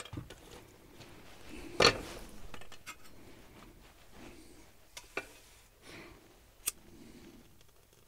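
A few sharp clicks and metallic knocks from handling a split piece of fatwood and the fire-lighting tools, the loudest about two seconds in, with quieter taps about five and seven seconds in.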